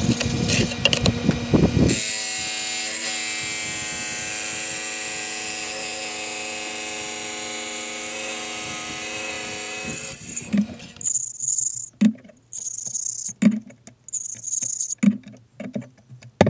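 Wet tile saw running steadily while its blade cuts through a porcelain tile, rougher and louder for the first couple of seconds. About ten seconds in the saw stops and a rubbing stone scrapes along the cut tile edges in separate strokes, roughly one every second and a half.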